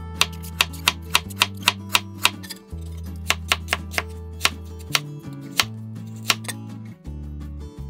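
Chef's knife slicing peeled ginger on a wooden cutting board: a run of sharp knocks of the blade on the board, about three a second, thinning out after the first few seconds. Background music plays underneath.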